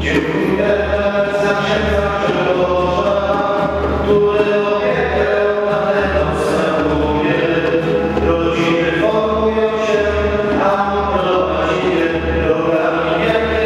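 Many voices singing a hymn together, accompanied by an acoustic guitar and a hand drum.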